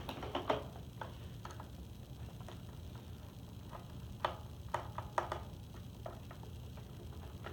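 Irregular sharp plastic clicks and taps from a Robosapien V2 toy robot's foot being handled while its battery compartment cover is opened with a crosshead screwdriver. The clicks come in a cluster at the start and another about four to five seconds in.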